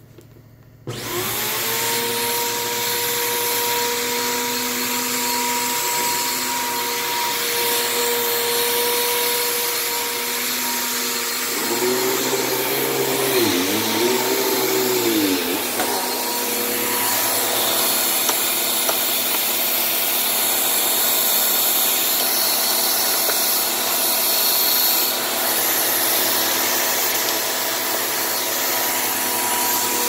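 Bissell PowerForce upright vacuum cleaner switched on about a second in, its motor spinning up into a steady whine, then run over carpet with debris crunching as it is picked up. Around the middle its pitch sags and wobbles twice before settling back to a steady run.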